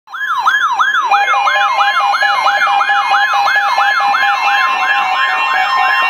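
Several weather radios alarming at once for a severe thunderstorm warning. One gives a siren-like sweep about three times a second. About a second in, others join with steady and beeping alert tones.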